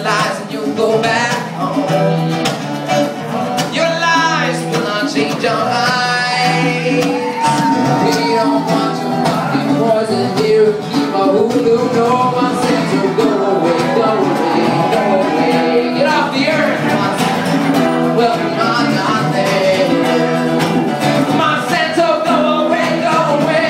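Live acoustic band music: acoustic guitar playing with voices singing over it.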